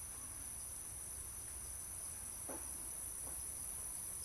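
Steady night chorus of crickets, a continuous high-pitched trill, with two faint short sounds about two and a half and three seconds in.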